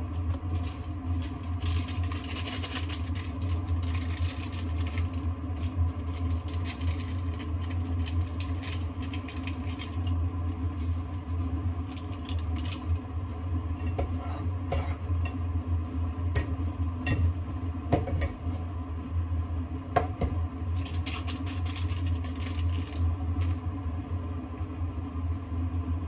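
Scattered scrapes and clicks of a spatula working egg in a small nonstick frying pan and of utensils at a bowl, over a steady low hum with fainter steady tones above it.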